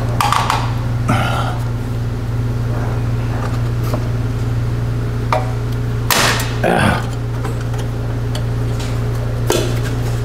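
Metal clicks, scrapes and knocks of a screwdriver prying at the wire retaining clip of a VW Beetle's valve cover, with a louder clatter about six seconds in. A steady low hum runs underneath.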